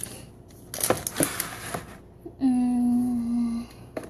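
Rustling and a couple of light knocks from handling things, then a woman's drawn-out "mmm" hum, held at one pitch for about a second.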